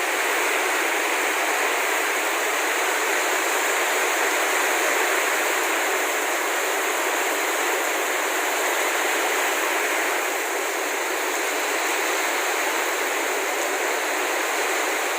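Heavy tropical rain pouring down in a steady, unbroken hiss.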